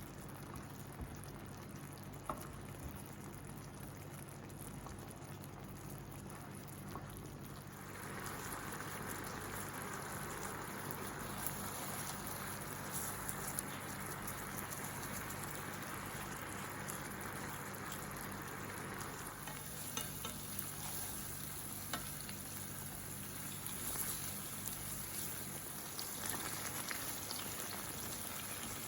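Chicken sizzling in a frying pan, getting louder about eight seconds in and easing again after about twenty seconds, with occasional light clicks.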